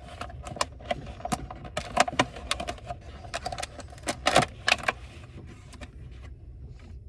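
Plastic food box being opened and handled: a run of sharp, irregular clicks and crackles that thin out over the last couple of seconds.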